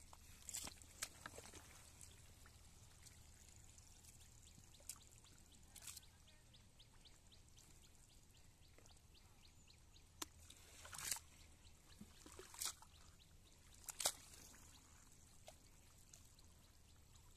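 Water dripping and splashing in short, scattered bursts from a wet cast net as it is handled at the water's edge, against a near-silent background.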